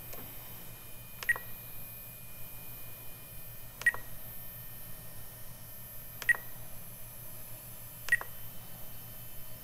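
Short high electronic beeps from the RC helicopter's radio gear, four of them about two to three seconds apart, over a faint steady hum.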